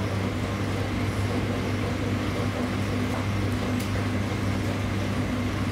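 Steady low mechanical hum of running kitchen equipment, even in level throughout.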